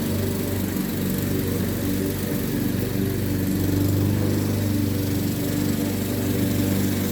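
Honda HRX217 walk-behind mower's single-cylinder four-stroke engine running steadily while mowing and bagging wet grass, with a slight rise and fall in its hum.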